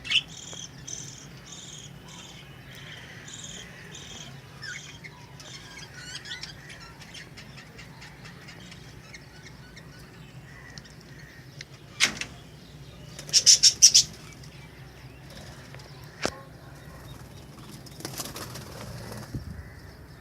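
Budgerigars chirping with short, high, repeated calls, then a quick flurry of wing flapping about two-thirds of the way through, the loudest sound. A few sharp clicks and a brief rustle come from the birds moving about.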